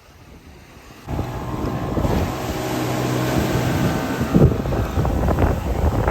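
Motorboat engine catching about a second in and then running steadily.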